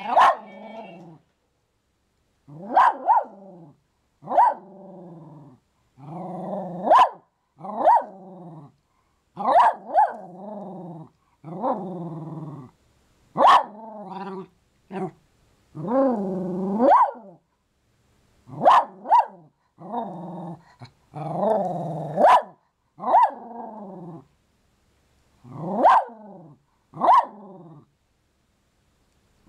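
Small poodle and Norfolk terrier mix dog barking and growling at a Christmas toy: short bouts, each a sharp bark running into a wavering growl, about one every second or two with brief silences between.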